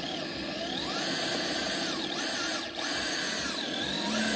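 Electric motors and geartrains of RC rock crawlers whining under slow throttle on a climb, several pitches gliding up and down as the throttle is fed in and eased off, with a brief dip about two-thirds of the way through.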